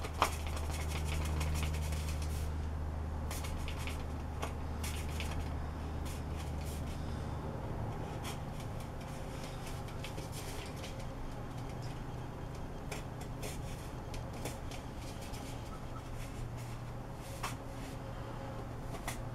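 Box cutter blade scraping and slicing around the seam ridge of a styrofoam ball: short, irregular scratchy strokes. A steady low hum runs underneath.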